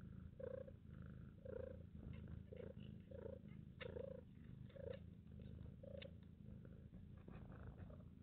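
Mother cat purring faintly and steadily while nursing her newborn kittens, with soft short sounds about once a second over the low purr.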